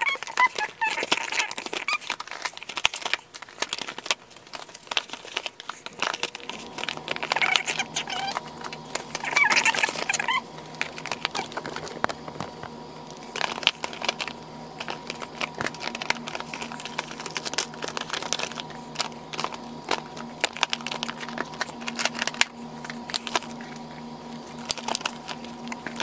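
Eyeshadow palettes in cardboard and plastic cases knocking and sliding against each other as they are packed upright into a plastic basket: irregular clicks and clacks throughout. A steady low hum comes in about six seconds in.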